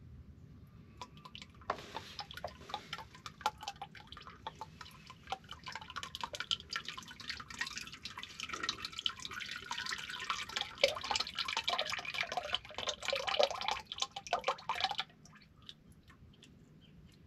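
Engine oil pouring and splashing into a plastic drain pan, a dense pattering full of drips. The oil held in the filter housing is running out as the filter comes off. It starts about two seconds in and cuts off suddenly near fifteen seconds.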